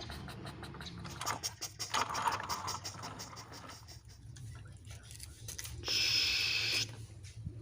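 Scratching, clicking and scraping of plastic toy vehicles being handled and pushed about. About six seconds in there is a loud hiss lasting about a second.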